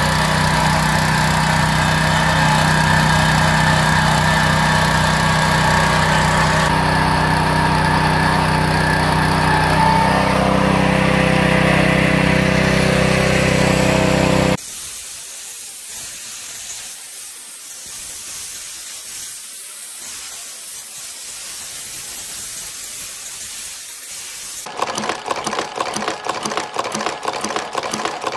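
Small petrol engine of a truck-wheel polishing machine running steadily, its pitch shifting slightly about ten seconds in. About halfway through it cuts off to a much quieter hiss. Near the end a jewellery chain-making machine starts a fast, even clatter.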